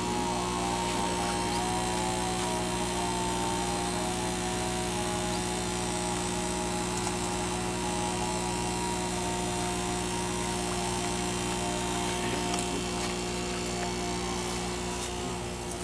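Electric air pumps for aerating fish tanks running with a steady drone. A constant low hum sits under a slightly wavering higher tone.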